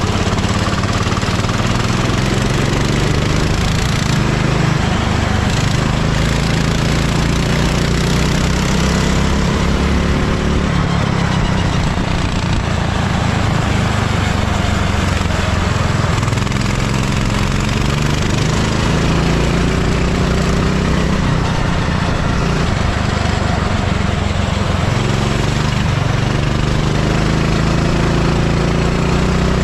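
Kart engine running hard, its pitch climbing under acceleration and falling back off the throttle, again and again, over a constant noisy rush.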